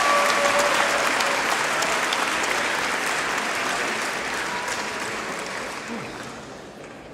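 Audience applauding, the clapping dying away steadily.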